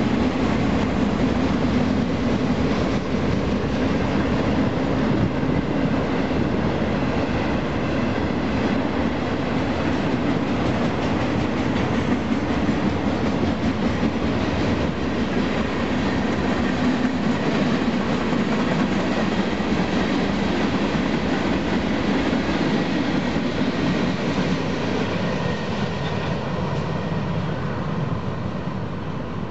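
Freight train's cars rolling past on the main line, steel wheels on rail making a steady rumble and clatter, easing off near the end as the last tank cars move away.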